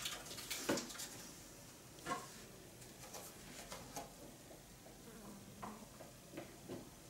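Light kitchen clatter: a few separate clicks and knocks of utensils, a second or two apart, over quiet room tone.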